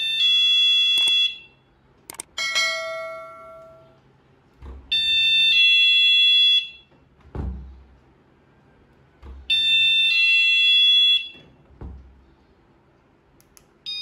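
Magnetic door/window alarm in doorbell mode sounding a loud electronic two-note chime three times, about four to five seconds apart, each set off as the door opens. Low thuds come between the chimes.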